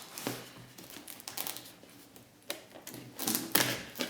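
Cardboard box being handled and its taped side cut and pried open: irregular clicks, taps and scrapes, busiest about three seconds in.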